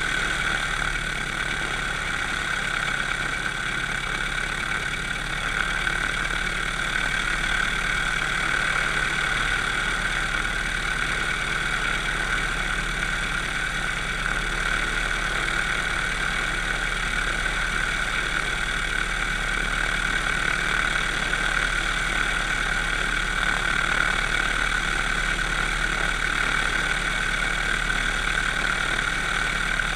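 Propeller aircraft's engine idling steadily on the ground, its propeller turning, with no change in speed.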